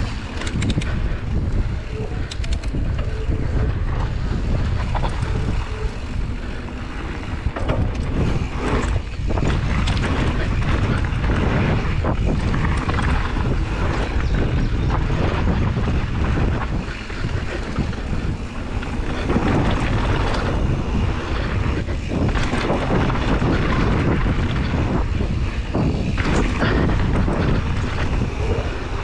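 Mountain bike rolling fast down a dirt and gravel trail: steady wind noise on the microphone over the rumble of tyres on the dirt, with frequent knocks and rattles from the bike over rough ground.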